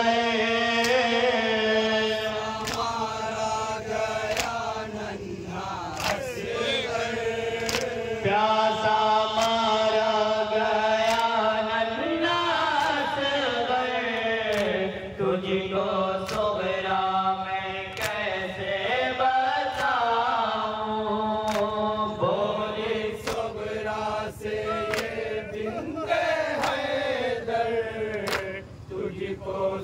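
Several men chanting a nauha, a Shia mourning lament, in unison over a microphone. Sharp slaps of matam (chest-beating) keep time about every second and a half.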